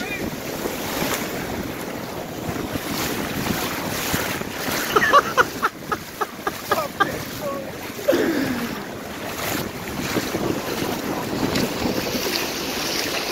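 Wind buffeting the microphone over sea water washing across a flooded concrete breakwater, waves surging and foaming along its edge. A quick run of short sharp sounds comes about halfway through.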